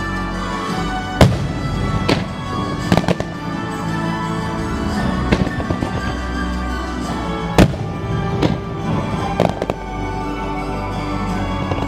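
Fireworks show bursts: a string of sharp bangs every second or two, the loudest about a second in and again about two-thirds through, over steady music playing throughout.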